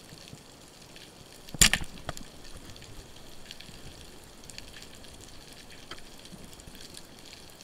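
Underwater speargun shot heard about one and a half seconds in: a single sharp crack as the spear is released and strikes the fish, with a short rattle after it. The rest is steady underwater hiss with scattered faint clicks.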